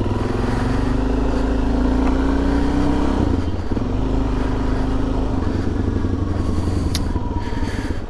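Motorcycle engine pulling away and accelerating, its pitch rising for about three seconds, with a short break in the engine note about three and a half seconds in, then running steadily. Heard from a mic inside the rider's helmet.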